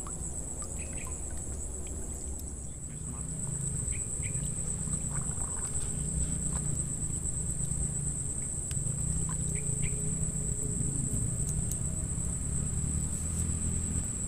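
Steady, high-pitched chirring of insects, one unbroken shrill note, over a low rumble that grows a little louder about three seconds in.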